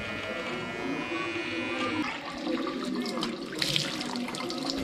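Electric beard trimmer buzzing for the first two seconds, then tap water running and splashing into a washbasin as hands scoop it over the face.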